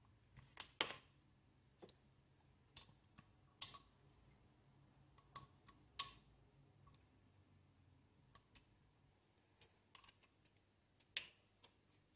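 Faint, irregular metallic clicks from a small screwdriver turning the seal-retaining screw into an air pistol's piston, with the tip ticking and reseating in the screw slot about a dozen times.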